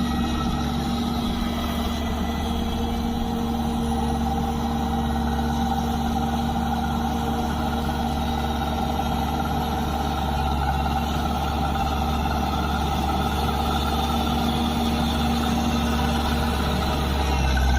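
Road roller's diesel engine running steadily, with a constant hum and low rumble, its pitch shifting slightly near the end.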